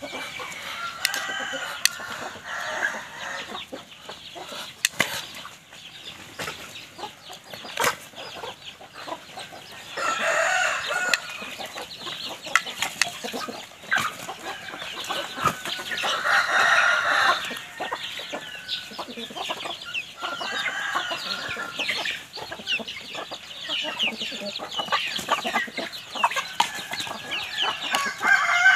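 A flock of hens and roosters clucking and calling, with a rooster crowing now and then. Many short sharp clicks are mixed in.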